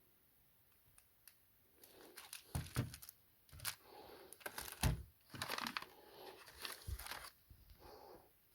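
Packaging being handled and torn open: irregular crinkling and tearing with a few sharp knocks, starting about two seconds in after near silence.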